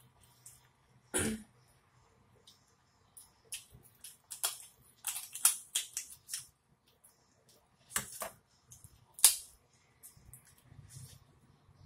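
Boiled lobster tail shell crackling and snapping in scattered sharp clicks as the meat is peeled out by hand, heard close up. A louder dull thump comes about a second in.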